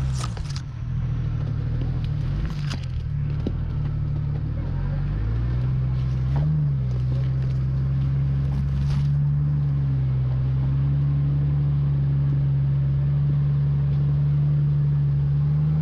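A 4x4's engine running steadily at low revs, its pitch rising and falling slightly a couple of times, with a few brief clicks.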